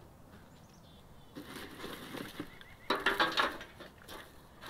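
Dry twigs and kindling crunching and snapping as they are handled and broken up, in a rustling stretch that ends in a louder burst of crackling about three seconds in.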